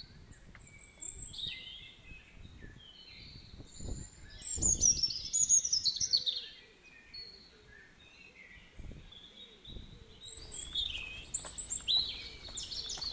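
Wild birds singing and chirping in quick runs of short high calls, busiest about four to six seconds in and again near the end, with a few low thuds underneath.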